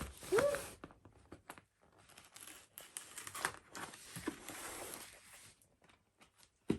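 Gift wrapping and a cardboard box being torn open and crinkled by hand: two spells of rustling and tearing, with a few light clicks between.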